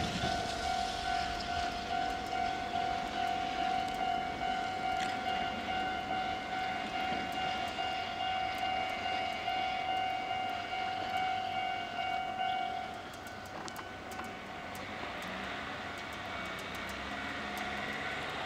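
Level-crossing warning bell ringing with a steady, pulsing electronic tone while a Kōnan Railway 7000 series electric train pulls away over the snowy track. The bell stops about two-thirds of the way through, after the train has cleared the crossing, leaving a faint low rumble.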